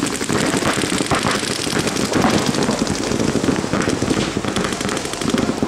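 Paintball markers firing rapidly, a dense, continuous stream of sharp pops.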